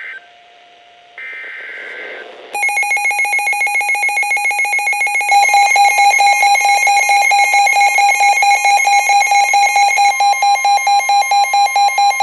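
Emergency Alert System tones for a tornado warning. A short, buzzy burst of the coded SAME data header comes first. Then the loud attention signal starts: a tone that pulses rapidly, joined about three seconds later by a second, higher tone to make the two-tone alert.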